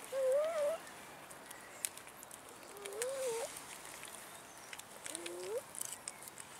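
Domestic cat making short wavering mews while eating, three of them a couple of seconds apart, each sliding up and down in pitch. Faint clicks of eating come in between.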